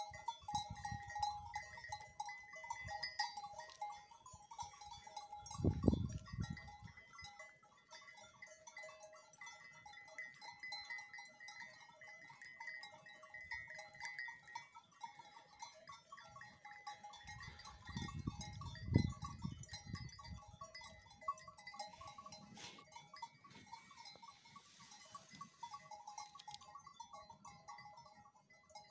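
A flock of grazing sheep: a steady clinking of many bells with occasional bleats. Two low rumbles on the microphone come about six seconds in and around eighteen to nineteen seconds.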